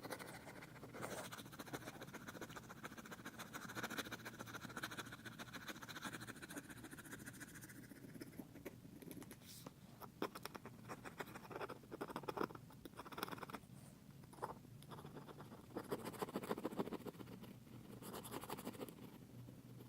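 Faint scratching of a metal tool scraping old adhesive residue off an iPad's frame, in repeated short strokes that come and go.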